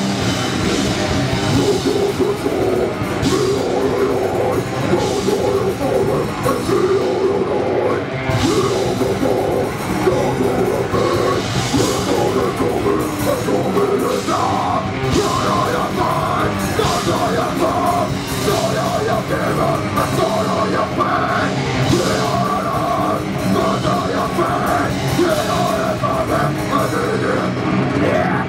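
Heavy metal band playing live: distorted electric guitars and drum kit in a dense, unbroken wall of sound, with a vocalist singing into a microphone cupped in his hands.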